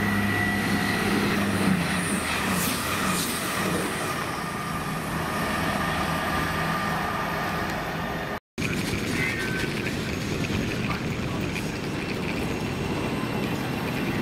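Train running through, a steady rumble of wheels on rail with a low hum and a few steady tones that fade out within the first few seconds. Just past halfway the sound cuts out for a moment and resumes with similar steady train noise.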